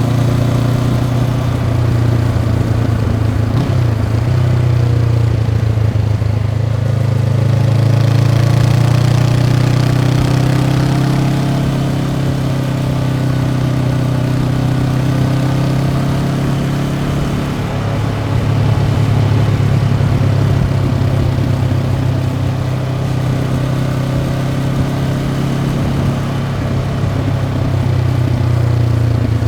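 Honda CB500X's parallel-twin engine through its stock exhaust, running steadily while riding. The engine note rises a little about eight seconds in and eases back, dips briefly a little past halfway, then picks up again.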